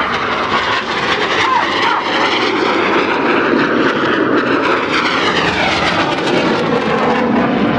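The synchro pair's BAE Hawk jets making a low, fast pass, a loud continuous jet roar. The pitch sweeps downward from about four seconds in as the aircraft go by.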